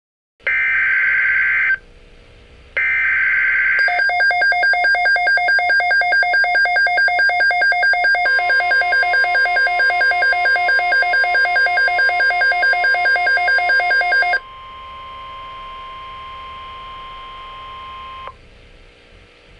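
Emergency Alert System broadcast signals: two short bursts of screechy digital data, then a fast-pulsing electronic alarm tone from about four seconds in. A steady single high tone joins partway through and carries on alone for a few seconds after the pulsing stops.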